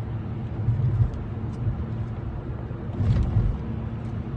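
Car cabin noise while driving: a steady low road-and-engine rumble that swells slightly now and then.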